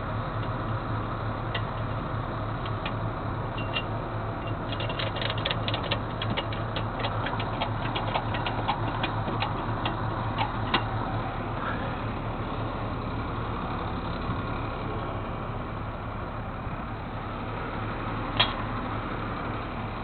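Vehicle engine running steadily. A run of quick, regular ticks, about three a second, lasts several seconds in the middle, and a single sharp click comes near the end.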